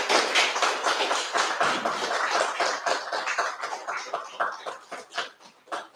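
Audience applauding, dense at first, then thinning to a few scattered claps that die out near the end.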